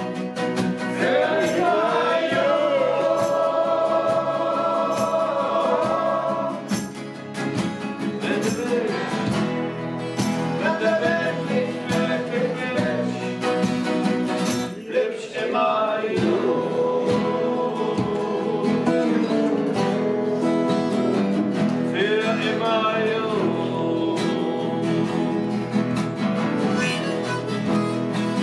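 An acoustic folk band playing: several acoustic guitars strummed together, with a harmonica and singing carrying held, slightly wavering notes over them.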